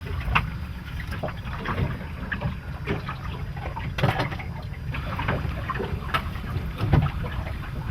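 Water slapping and splashing against a small boat's hull in irregular bursts, over a steady low rumble.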